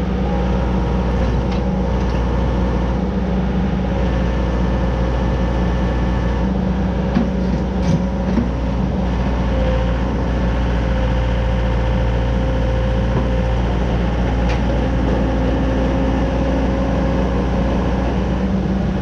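Komatsu PC75UU-2 mini excavator's diesel engine running steadily as the boom is raised and the bucket curled, with a few faint clicks partway through.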